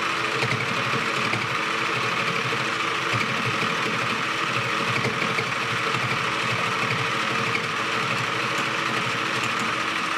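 Spin Master Sew Cool toy felting machine running steadily, its needles punching rapidly up and down through the felt as the fabric is guided under them. It makes an even, rapid mechanical buzz.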